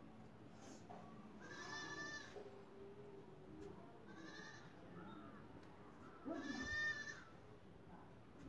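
An animal calling three times, each call under a second long and about two seconds apart, the third the loudest.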